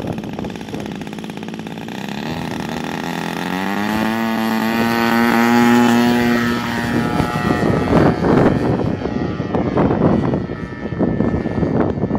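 Radio-controlled Hangar 9 Spitfire model plane's engine opening up for take-off: its pitch climbs over about two seconds and holds high as the plane lifts off. After about eight seconds the steady tone gives way to uneven, rushing noise as the plane climbs away.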